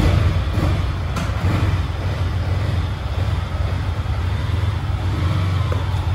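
Yamaha R15 V3's single-cylinder 155 cc engine idling steadily, a low, evenly pulsing rumble.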